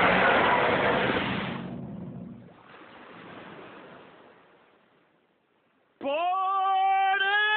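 A loud rushing noise that fades out over about two seconds, then a fainter rush and a moment of near silence. About six seconds in, an emergency siren starts abruptly on a steady tone that steps up slightly a second later.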